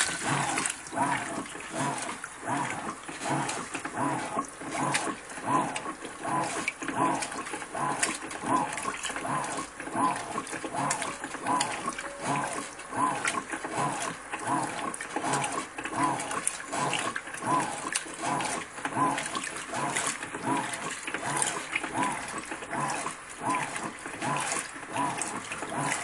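Electrolux Ecologic LEC12 top-load washing machine agitating a wash load: the agitator swings back and forth in a quick, even rhythm, each stroke a short rising-and-falling motor whir, over water sloshing and splashing in the tub.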